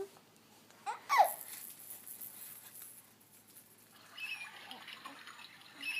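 Baby toy playing recorded nature sounds: a short high call falling in pitch about a second in, then faint chirps over a soft watery hiss in the last two seconds.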